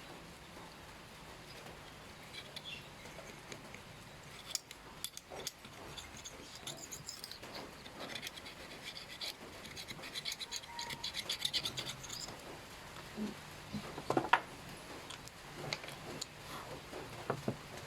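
Hand work with small hard objects: scratching and rubbing with scattered light clicks and taps, a quick run of scratches around the middle, and a sharper knock about fourteen seconds in.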